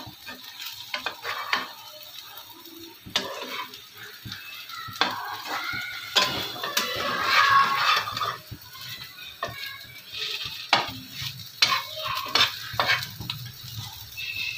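Spatula scraping and knocking against a non-stick frying pan as an egg omelette with bread fries in oil, with a light sizzle underneath.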